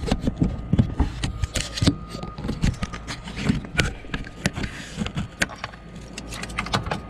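Irregular clicks, knocks and scraping of hands working plastic parts up behind the pulled-back fender liner, around the fog light's wiring plug.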